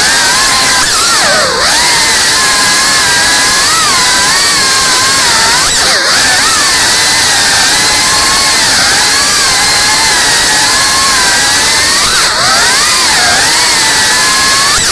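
FPV quadcopter's brushless motors whining as it flies. The pitch wanders up and down with the throttle, with sharp drops and quick recoveries about a second and a half in, around six seconds, and just past twelve seconds.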